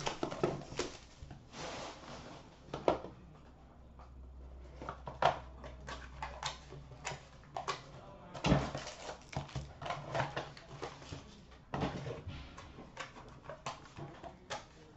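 A sealed hockey card box being unwrapped and opened by hand: the plastic wrap is cut and torn off, and the cardboard is handled and the lid lifted, in irregular crinkles, rustles and taps. A few sharper knocks come about eight and a half and twelve seconds in.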